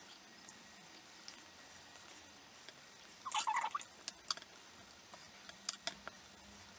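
Quiet handling sounds of polymer clay crafting: a brief scrape a little over three seconds in, the loudest sound, then a few sharp light clicks as a snap-off craft knife is worked against clay on card and set down.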